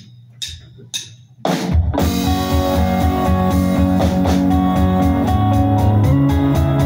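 A few evenly spaced clicks of a count-in, then a live band comes in together about a second and a half in: drum kit with a steady bass-drum beat, bass guitar and electric guitars playing loudly.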